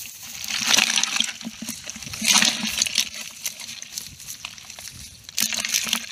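Live small fish and crabs wriggling and flapping in a plastic bucket, wet slapping and crackling against one another in three short bursts.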